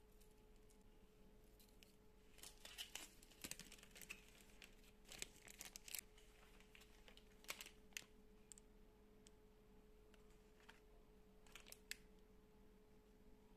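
Faint handling noises: light clicks and plastic crinkling as small items and a plastic blister pack are handled, in scattered bursts through the first half and again near the end, over a faint steady hum.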